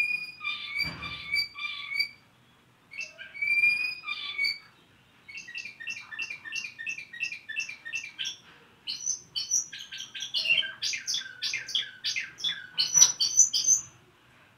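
Spanish Timbrado canary singing discontinuous-style song: short phrases broken by brief pauses. It opens with two held, pulsing whistled notes, then runs of rapid repeated notes at about four to five a second, which grow denser and louder toward the end.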